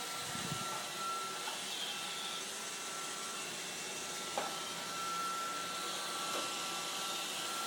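Roomba robot vacuum running: a steady whirring hiss from its motor with a thin steady whine above it, and a light click about four and a half seconds in.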